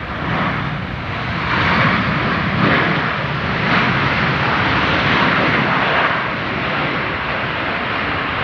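Airbus A320-232 jet airliner's twin IAE V2500 turbofan engines running loud as it rolls along the runway, a steady rushing roar that grows louder about a second and a half in and then holds.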